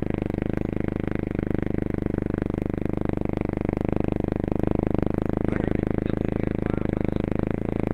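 Four-wheeler (ATV) engine running at a steady speed, a constant low drone with a fast, even pulse.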